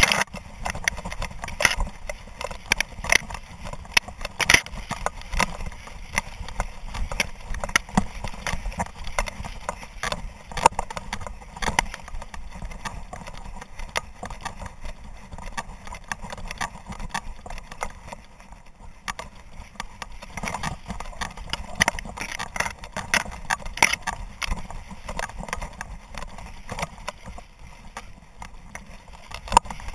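Dry grass stems swishing and scraping against a camera strapped to a running dog, with rapid irregular clicks and knocks from its footfalls and the jostling mount.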